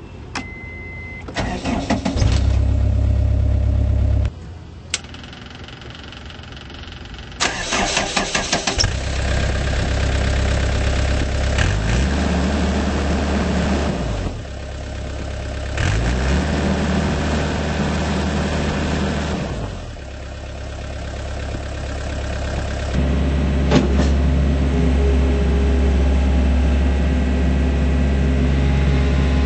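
Diesel engine of a 2006 Takeuchi TL130 rubber-tracked skid steer loader being started. A short beep is followed by the starter cranking briefly and the engine catching; it stops about four seconds in. It is cranked again and restarts, then its speed rises and falls several times before running steadier and louder near the end.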